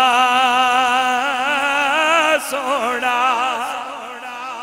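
A man's voice singing a drawn-out refrain of a Punjabi naat, holding one long note with a wide vibrato. About two and a half seconds in it breaks into a wavering run of notes that trails off near the end.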